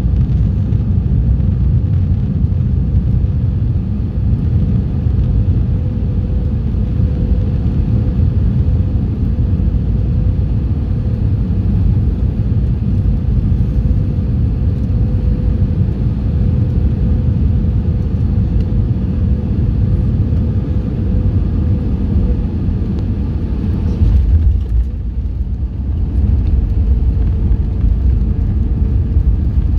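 Cabin noise inside an Airbus A320: a loud, steady low rumble of engines and airflow with a constant hum. There is a brief louder jolt about 24 seconds in.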